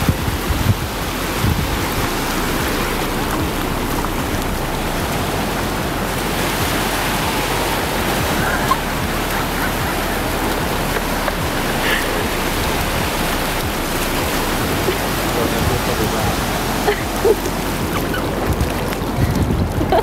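Ocean surf washing steadily in over the shallows, with wind buffeting the microphone.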